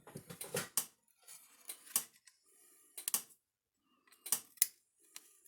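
Small metal tools and parts being handled on a workbench: a series of sharp, light clicks and taps, bunched together in the first second and then scattered singly.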